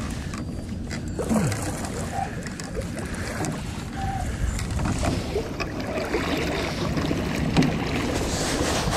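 Steady rushing noise of water along the hull and air over the microphone as a small fishing boat moves across calm river water.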